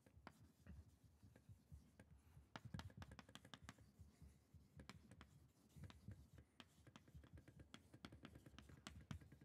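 Chalk writing on a blackboard: a faint, irregular run of short taps and scrapes as words are written.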